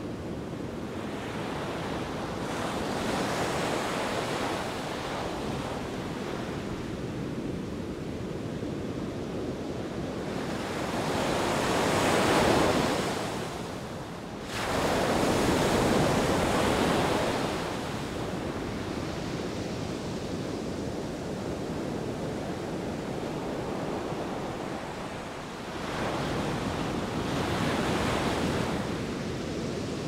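Sea surf breaking and washing up a sandy, rocky beach in a continuous rushing wash. Larger waves swell up a little under halfway through, drop away briefly, then surge again, with a smaller swell near the end.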